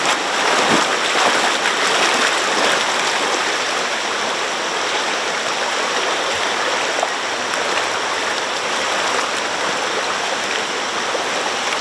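Shallow stream running steadily over rocks, with water swishing around the legs of people wading through it.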